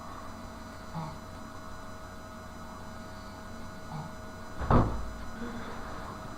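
Steady low room hum, broken near the end by one loud sudden thump.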